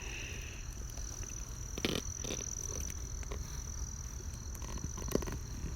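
Steady high-pitched trill like insects, over low background noise, with a few light knocks about two seconds in and again near the end.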